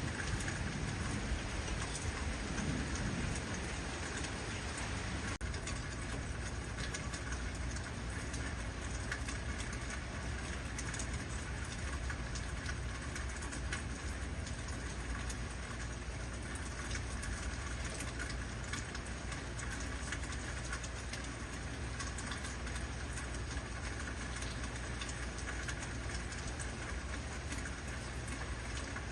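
Heavy rain falling steadily, a dense even hiss of drops, with a low rumble of thunder dying away in the first few seconds.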